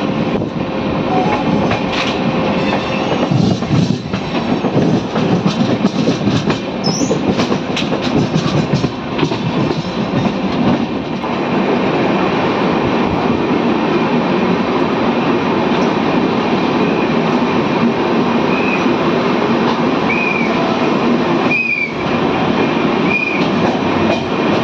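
Shatabdi Express train running at speed, a steady rumble with wheels clattering over rail joints, the clacks densest in the first half. A few brief high squeals come near the end.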